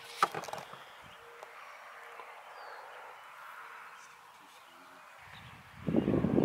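Faint birds chirping over quiet outdoor ambience, with one sharp click about a quarter second in and a low rumble on the microphone near the end.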